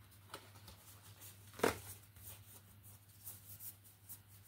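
A deck of reading cards being handled and shuffled by hand: scattered light card slaps and flicks, the loudest about a second and a half in and a quick run of them near the end, over a faint steady low hum.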